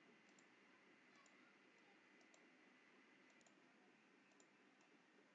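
Near silence: faint room hiss with faint short clicks, mostly in pairs, about once a second.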